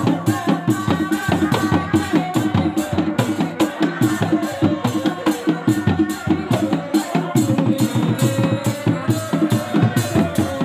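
A live Reak ensemble plays dog-dog drums in a fast, steady beat, with a held wind-instrument melody over the drumming.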